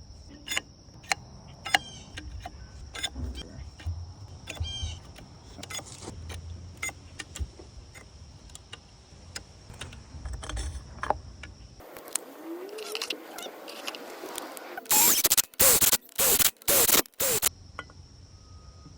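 Oil-soaked steel clutch plates and fibre friction discs clicking and clinking lightly as they are fitted into a Honda CRF250R's clutch basket. Near the end comes a run of several loud, short bursts.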